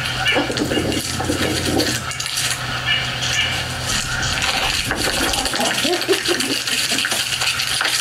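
Scratching, clicking and rattling as a squirrel grabs a fake nut with a camera hidden inside and carries it off, heard on a wildlife documentary's soundtrack.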